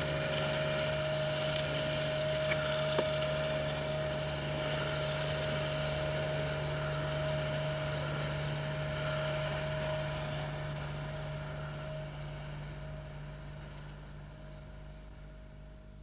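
Child's mini motorbike engine running as it rides across the field, fading steadily as the bike moves away over the second half.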